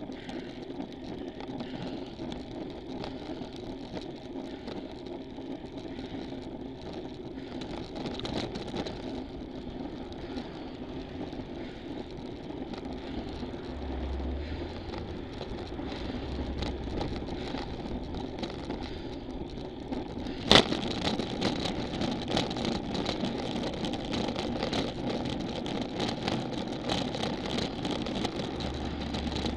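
Steady riding noise from a road bike climbing, heard through a handlebar-mounted camera, with a car passing close by about halfway through. A single sharp click comes about two-thirds of the way in, followed by light ticking.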